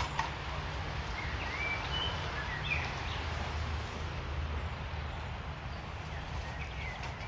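Several short bird chirps over a steady outdoor background hiss with a low rumble, and a small click just after the start.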